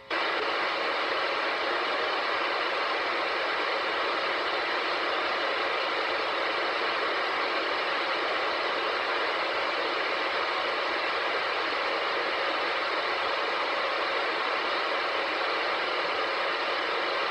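Radio receiver static: a steady, even hiss with no tones, cutting in abruptly and running without change for about seventeen seconds between broadcast messages.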